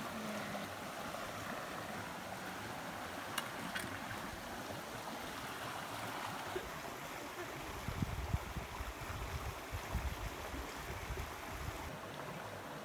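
Muddy stream rushing over rocks in small rapids: a steady rush of water. A few seconds of low rumbling bumps come in about eight seconds in.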